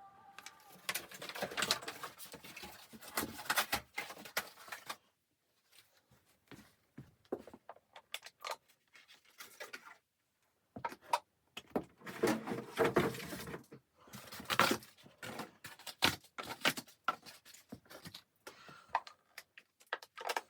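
Irregular handling noises in a small room: clusters of knocks, clicks and rustling coming in bouts, with brief pauses.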